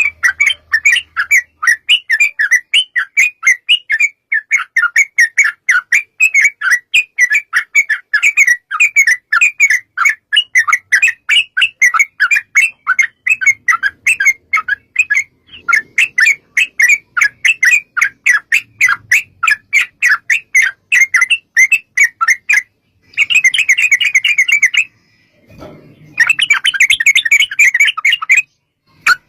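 Yellow-vented bulbul (trucukan) singing a long, rapid chattering run of sharp notes, about four to five a second. It breaks off briefly about halfway, then ends in two denser, faster bursts near the end.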